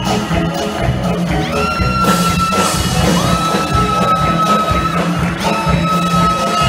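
Loud show music with a heavy steady beat and long held high notes that slide into pitch.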